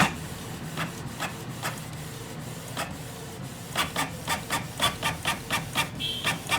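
Canon Pixma G1020 inkjet printer printing a test page. At first there are scattered clicks and whirs, then from about four seconds in the print head starts shuttling in a quick, even rhythm of about five strokes a second.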